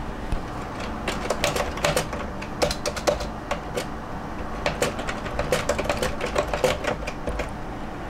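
Typing on a computer keyboard: irregular runs of quick key clicks, with a short pause about four seconds in and fewer clicks near the end.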